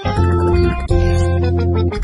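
Background music: two long held keyboard chords, the second starting about a second in.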